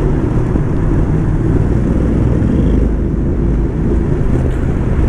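Motorcycle under way on the road, its engine running steadily with road noise.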